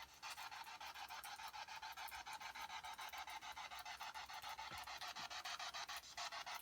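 Ghost-hunting spirit box sweeping through radio stations: a faint, steady hiss of static chopped about six times a second.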